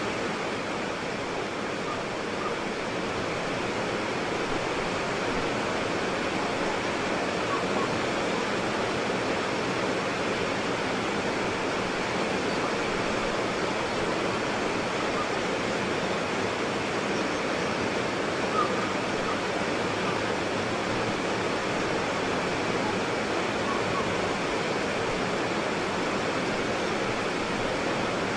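White water rapids rushing, a steady unbroken roar of churning water.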